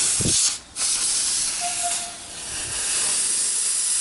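Compressed air hissing out of a homemade compressor tank, an old gas cylinder charged to about 40 on its gauge, as its air valve is opened. A low thump right at the start; the hiss stops briefly about half a second in, then runs on with a slight dip around two seconds.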